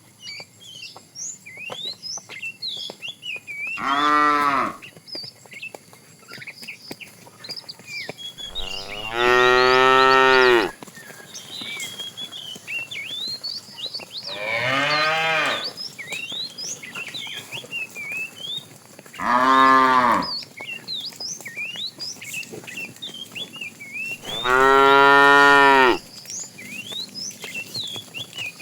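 Cattle mooing: five long, loud moos a few seconds apart, with faint high chirps between the calls.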